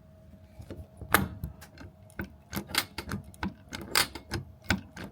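Hand rivet tool clacking as its handle is squeezed over and over, setting a small interior rivet in an Airstream trailer's aluminium skin. The sharp irregular clicks, a few a second, start about a second in.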